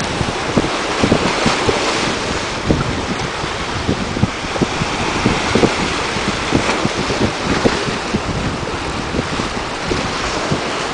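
Seawater washing and foaming over shoreline rocks in a steady rush, with wind buffeting the microphone in frequent low rumbling gusts.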